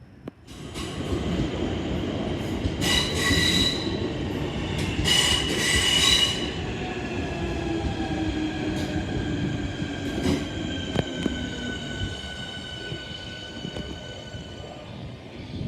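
Southeastern electric multiple-unit train running into the platform: wheels rumbling and squealing, with two loud bursts of high squeal about three and five seconds in. A motor whine falls in pitch midway as the train slows.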